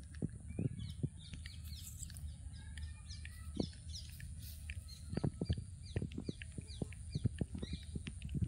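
Small birds chirping over and over with short, quick falling calls, against soft crackles and rustles from close by and a steady high-pitched whine.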